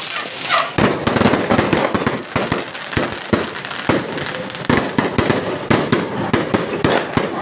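Fireworks going off in a rapid, irregular string of loud bangs and crackles.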